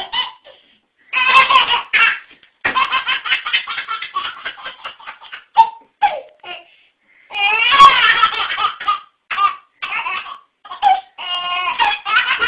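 A baby laughing hard in several bursts, each a quick run of high-pitched laughs.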